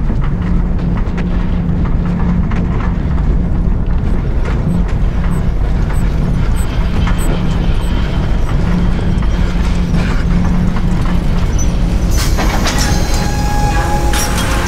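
A steady, loud low rumble with a constant hum underneath and faint scattered clicks, a mechanical drone like a running engine. About twelve seconds in, held musical tones come in over it.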